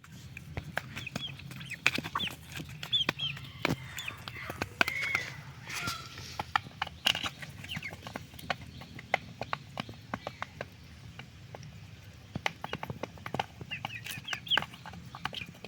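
A flock of chickens calling while feeding: short high chirps and clucks come in clusters, with many sharp clicks scattered through.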